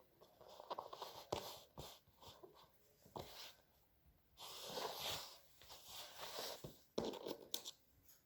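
Kinetic sand being worked with plastic moulds and tools: faint soft scraping and crunching, with a few sharp clicks.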